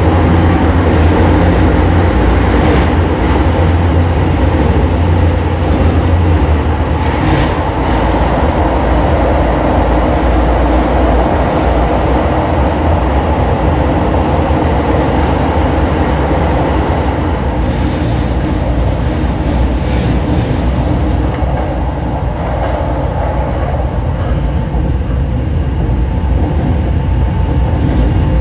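Running sound of Hokushin Kyuko train set 7055F on the move: a steady, loud rumble of wheels and motors on the rails, with a few sharp clicks now and then.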